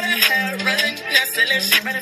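Male rap vocals over a hip-hop backing track with a steady beat.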